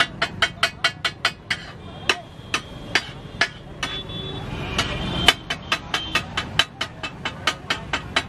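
Flat metal spatula chopping food against a metal griddle: rapid sharp clanking strikes, about five a second, slowing to a few spaced strikes for a couple of seconds in the middle, then fast again.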